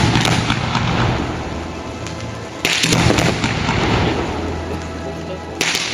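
Fireworks display: aerial shells bursting with a sudden bang about two and a half seconds in and again near the end, each followed by a long crackling spray that slowly fades.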